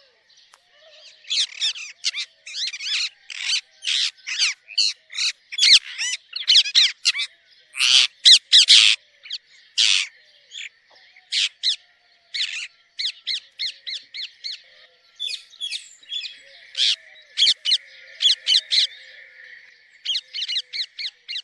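Pet parrot chirping and squawking: quick runs of short, shrill calls, often several a second, broken by brief pauses.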